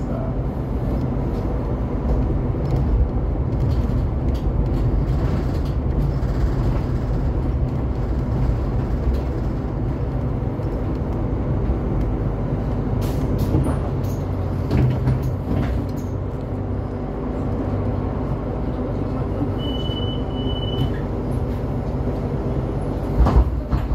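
Steady cabin rumble inside a Solaris Trollino 12 IV electric trolleybus as it runs, with scattered light clicks and rattles. A brief high double beep sounds about twenty seconds in.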